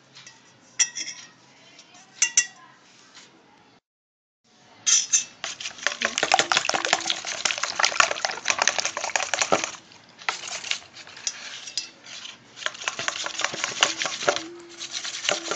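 Metal spoon beating eggs into melted chocolate and butter in a steel bowl, clinking and scraping against the bowl. A few light taps at first, a brief dropout about four seconds in, then fast, continuous beating.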